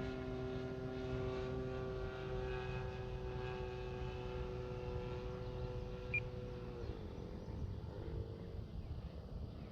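Radio-control Super Decathlon model airplane's engine running steadily in flight, then throttled back about seven seconds in, its pitch dropping and the sound fading to a quieter idle as the plane sets up to land.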